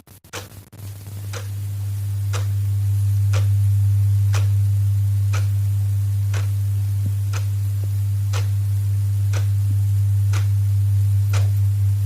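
Clock ticking with sharp, even ticks once a second, over a steady low hum that fades in during the first couple of seconds and is the loudest sound.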